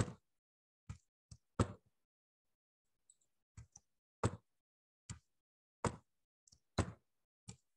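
About a dozen sharp, separate clicks from a computer mouse and keyboard, irregularly spaced, a few of them in quick pairs, with quiet between.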